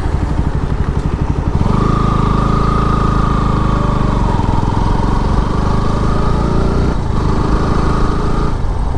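Motorcycle engine running with a fast, even pulse. From about two seconds in, a steady droning tone joins it and holds until near the end.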